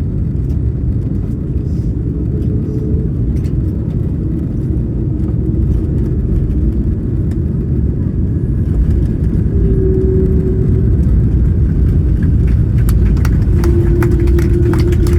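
Airbus A330 passenger cabin during the landing roll: a loud, steady low rumble of the airliner on the runway. It grows louder about two-thirds of the way through as a steady hum comes in, and the cabin rattles near the end.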